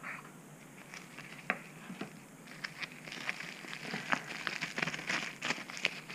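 Plastic bubble wrap crinkling and crackling in the hands as it is unwrapped from a small folding knife. The crackles are scattered at first and come thicker in the second half.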